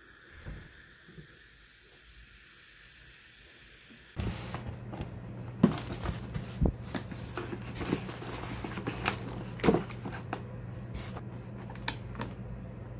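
Faint steady hiss, then from about four seconds in a styrofoam delivery box and its contents being handled: scattered clicks, knocks and rustles over a steady low hum.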